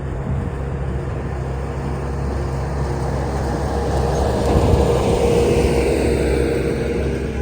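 Bobcat skid steer engine running steadily with a mechanical drone, growing louder about halfway through and easing off near the end.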